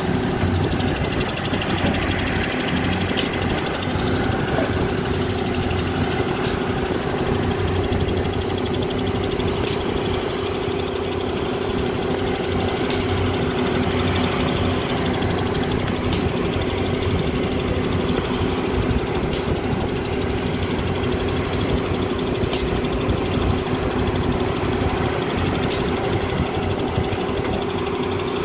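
Volvo EC210 BLC excavator's diesel engine and hydraulics running steadily under load as it digs, swings and dumps a bucket, a constant drone with no let-up. A faint high click recurs about every three seconds.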